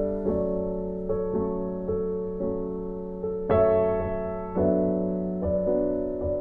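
Instrumental background music played on a soft piano-like keyboard. Gentle notes come about every half second and fade away, with a louder, fuller chord about three and a half seconds in.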